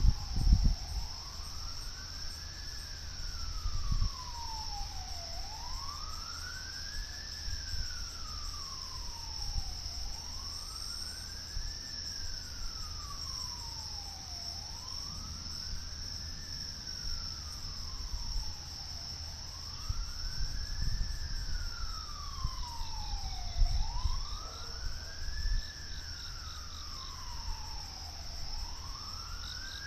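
Outdoor tornado warning siren wailing, sliding slowly up and down in pitch about once every four and a half seconds; it signals that a tornado warning is in effect. Crickets chirp steadily and high-pitched underneath.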